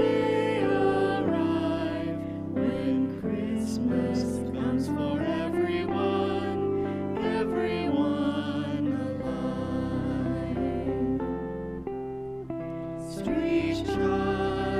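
Music: a slow, gentle hymn with singing over plucked-string accompaniment.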